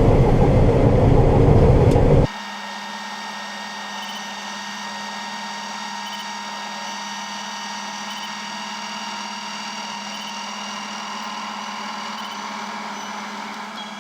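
Combine harvester running at work, loud, which cuts off abruptly about two seconds in. A quieter, steady mechanical hum with thin high whining tones follows.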